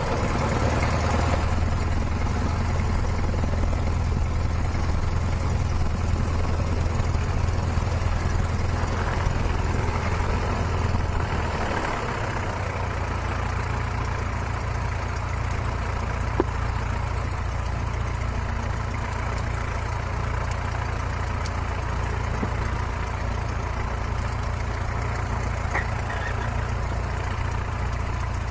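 Cessna 150's Continental O-200 four-cylinder engine running at low taxi power, a steady low drone; the engine note drops and eases slightly about twelve seconds in.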